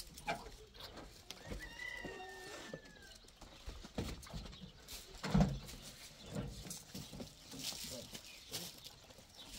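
A farm animal calls once in a drawn-out, slightly falling cry about two seconds in, among scattered knocks and clatter, with a louder thump about five seconds in.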